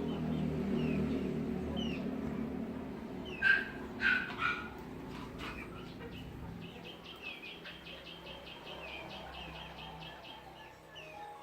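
Farmyard bird calls: small chirps throughout over a low steady rumble. Three loud, sharp calls come about half a second apart around the middle, followed by a fast chattering trill lasting about four seconds.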